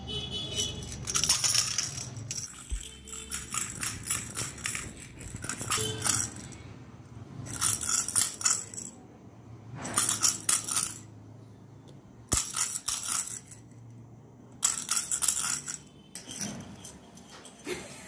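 Hollow plastic lattice toy balls with bells inside jingling and rattling in bursts of about a second, six times, as Alexandrine parakeets push and roll them on a tiled floor.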